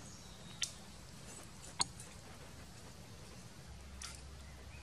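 Faint steady low background hum broken by three short, sharp clicks, the second the loudest.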